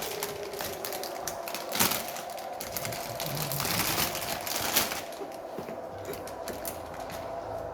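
Rapid, irregular clicking and rustling of computer parts being handled, loudest in the middle.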